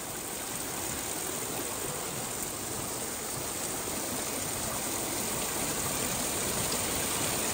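Many streams of water pouring from a long row of metal bull-head spouts set in a stone wall and splashing below: a steady rushing splash that grows a little louder toward the end.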